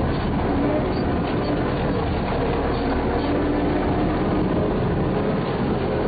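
Steady engine and road noise of a vehicle being driven.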